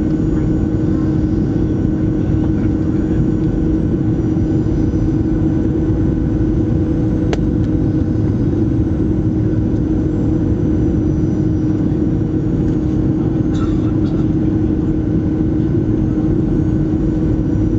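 Cabin noise of a Boeing 737-700 on approach, heard from a seat over the wing: the CFM56-7B turbofan engines running steadily as a loud rumble with a steady hum. A single sharp click about seven seconds in.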